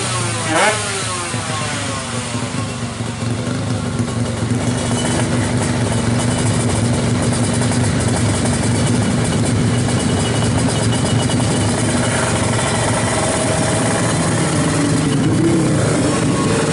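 Drag-racing motorcycle's 200 cc fuel-injected sleep engine, a horizontal-cylinder four-stroke, blipped once just after the start and then running steadily at low revs.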